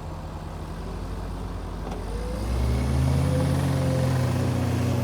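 A heavy vehicle's engine running, then revving up about two and a half seconds in and holding at the higher speed.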